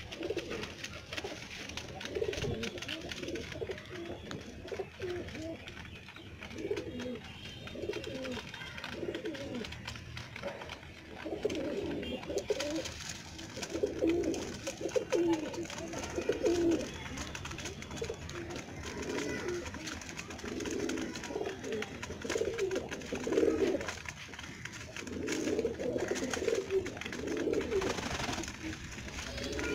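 Domestic pigeons cooing: low cooing calls come in repeated clusters, one after another, with short pauses between them.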